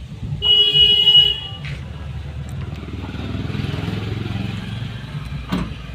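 A vehicle horn sounds once for about a second, then a motor vehicle's engine swells and fades as it passes.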